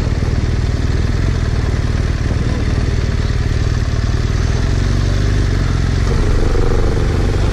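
BMW R1200R LC's liquid-cooled boxer-twin engine running at low revs while the bike rolls at walking pace, its note settling steadier about five seconds in.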